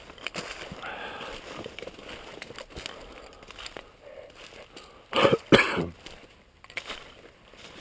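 A person coughing twice in quick succession, two short harsh coughs a little past the middle.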